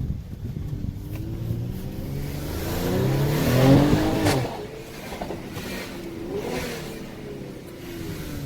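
Mercedes-AMG GLE 43 Coupe's twin-turbo V6 accelerating in Sport mode, its note rising to a peak about three and a half seconds in. A sharp crack follows just after four seconds, then the engine eases off and pulls more gently.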